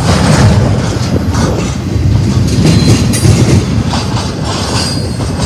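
Double-stack intermodal freight cars rolling past close by: a steady heavy rumble of steel wheels on the rail, with repeated clacking as the wheels pass over rail joints.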